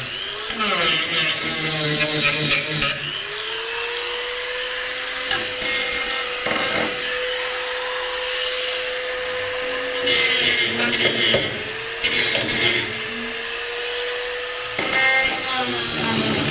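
Handheld power tool working metal. Its motor runs with a steady note, and the note sags each time the tool is pressed into the work, giving loud rasping stretches about a second in, around the middle and near the end.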